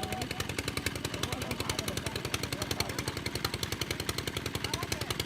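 Engine of a pump draining a pond, running steadily with a rapid, even knocking beat. Faint voices in the background.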